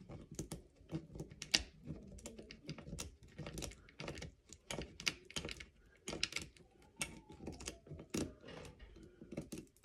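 Cable shears cutting at an angle through spent .22 brass casings packed with monofilament fishing line: a run of irregular sharp clicks and crunches as the blades are worked through the brass.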